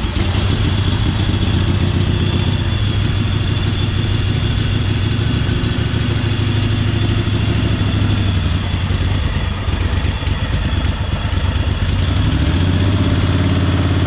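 The 1998 Craftsman garden tractor's Kohler engine running steadily right after a choked start. It is pretty tappy on old, black oil, which the owner connects to its hydraulic lifters. About twelve seconds in, the engine note gets louder and fuller.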